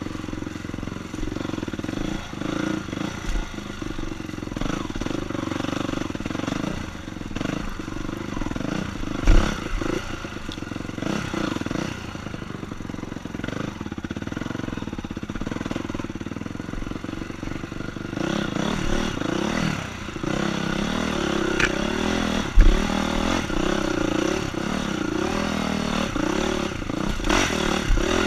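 Honda CRF four-stroke dirt bike engine being ridden hard, its revs rising and falling continually through throttle and gear changes. Two loud thumps stand out, one about nine seconds in and one a little past halfway.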